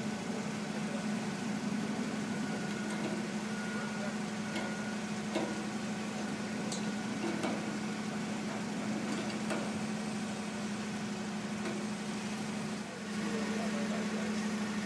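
Toyota forklift engine idling steadily, with a few faint clicks over it.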